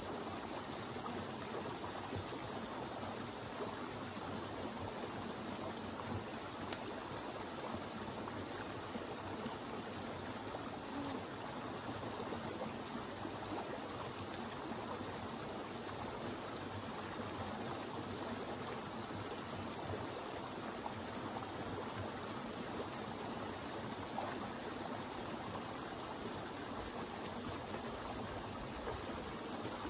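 Small rocky forest stream running steadily, water trickling and splashing over a little cascade in an even wash. A single short click sounds about seven seconds in.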